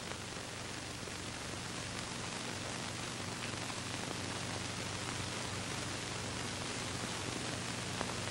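Steady hiss with a low hum underneath: soundtrack noise with no distinct sound event, apart from a faint click near the end.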